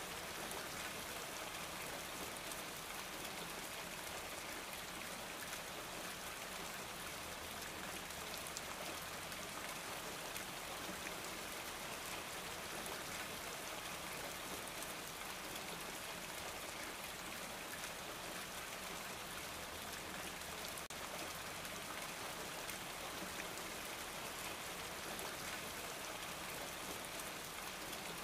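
Steady sound of rain falling, an even hiss of drops with no change in level.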